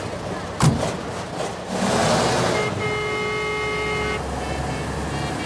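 A vehicle door slams shut with a sharp bang. Then a rush of vehicle noise, and a car horn sounds once, held steady for about a second and a half.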